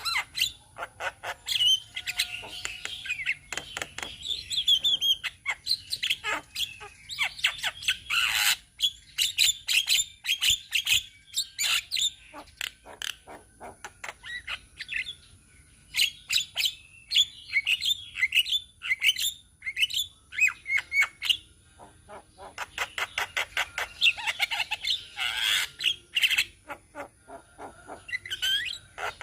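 A group of Javan mynas chattering: rapid runs of harsh clicks, squawks and whistled notes, in bursts separated by short lulls.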